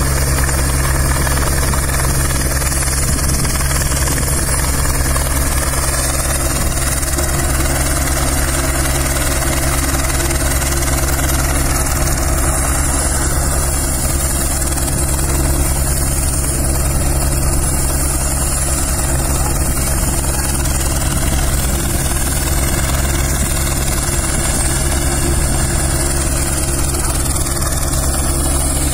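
Helicopter running steadily on the ground, a constant loud sound with a low hum that does not change.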